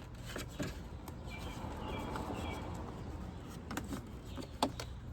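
Sharp clicks and knocks of plastic grille clips and trim being worked loose on a Honda Accord front end. A car passes in the background, swelling and fading about the middle, with a few faint bird chirps.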